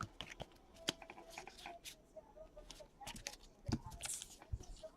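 Faint, scattered clicks and soft rustling of trading cards being handled and flipped through by hand.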